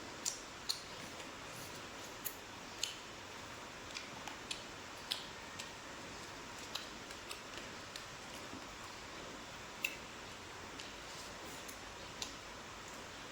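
A person chewing and eating: irregular sharp mouth clicks and lip smacks, one or two a second, over a steady faint hiss.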